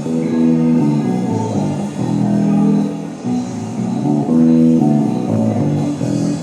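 Tagima TbM 5 five-string electric bass being played, a run of plucked notes changing about once a second.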